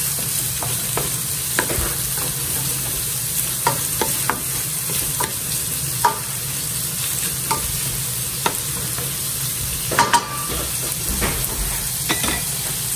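Diced hotdog, carrots, onion and garlic sizzling in a nonstick frying pan while a wooden spatula stirs them, tapping and scraping against the pan about once a second. There is a sharper double knock about three quarters of the way through.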